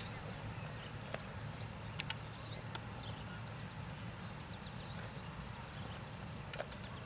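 Open-air ambience: a steady low rumble of wind on the microphone, with a few scattered sharp clicks.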